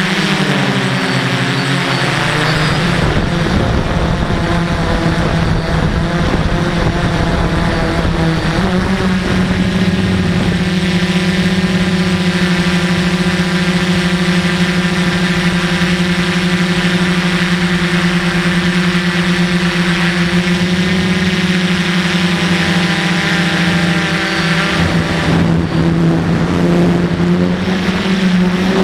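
DJI F450 quadcopter's four brushless motors and propellers whining steadily in flight, heard close up from the camera on the drone. The pitch wavers with the throttle in the first few seconds and shifts again about nine seconds in.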